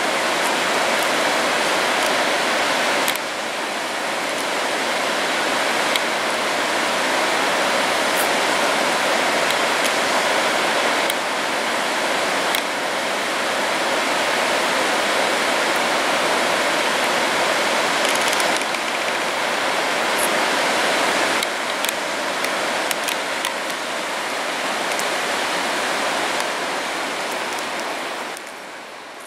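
Steady rushing of mountain water, a snowmelt stream or cascade, as an even hiss that fades out near the end.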